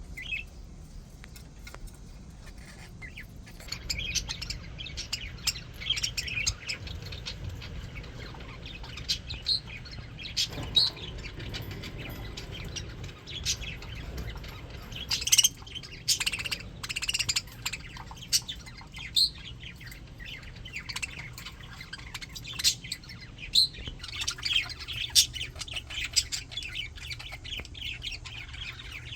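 A flock of English budgies chattering: many overlapping short chirps, warbles and squawks, thickening about four seconds in, with a few louder squawks along the way.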